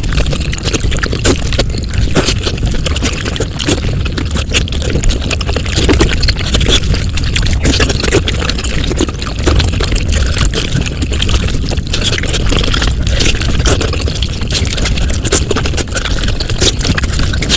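Mukbang eating sounds sped up five times: chewing, crunching and slurping turned into a dense, rapid crackle of clicks over a low rumble.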